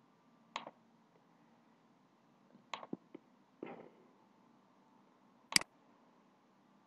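A few sparse computer mouse clicks over quiet room tone, a small cluster around the middle and one sharper, louder click near the end.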